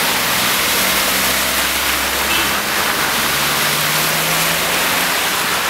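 Cars driving slowly through floodwater on a street, tyres pushing through running water, over a steady rushing hiss with a low engine hum underneath.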